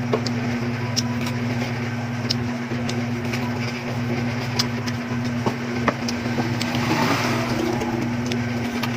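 A steady low machine hum, with scattered small clicks and crunches of someone biting and chewing crisp wax apples (tambis).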